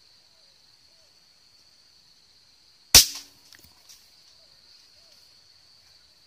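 A single air rifle shot about three seconds in: one sharp crack with a short ringing tail.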